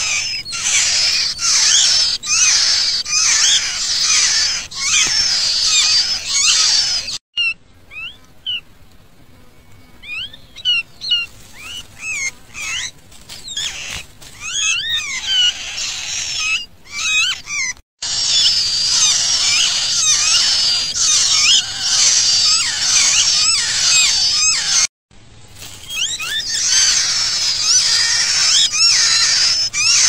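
A brood of nestlings begging with their beaks gaping wide for food: a dense, rapid run of shrill high chirps. After a sudden break about a quarter of the way in, the calls thin to scattered chirps, then return at full strength, with another abrupt break later.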